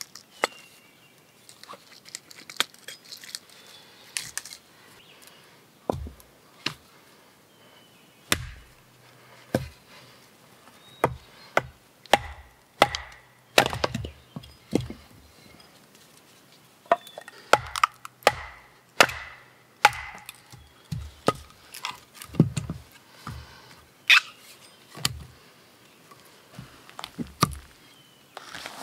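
Splitting firewood by batoning a hatchet: a short log is used as a mallet on the hatchet's back, giving a long series of irregularly spaced sharp wooden knocks and cracks as the wood splits.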